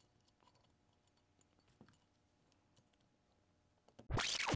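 A few faint clicks of small parts being fitted as detent covers go onto a metal paintball-marker body, then about four seconds in a loud scratchy transition sound effect cuts in abruptly.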